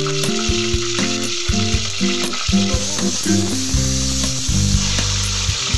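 Green chillies sizzling in hot oil in an aluminium pressure cooker, a steady frying hiss. Background music with a melody and bass line plays over it.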